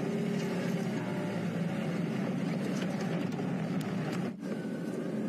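Open safari vehicle's engine running as it drives along a dirt bush track, a steady drone that briefly drops about four seconds in.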